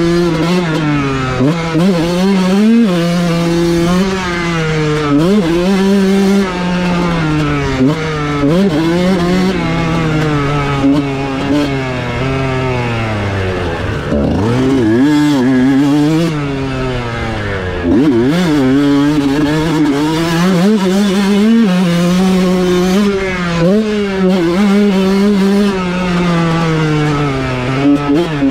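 Kawasaki KX125 motocross bike's 125 cc single-cylinder two-stroke engine ridden hard, its pitch climbing and falling over and over as the throttle opens and closes through the gears. One deep drop and climb comes about halfway through.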